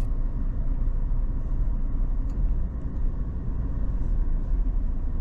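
A car driving slowly: engine and road noise as a steady low rumble.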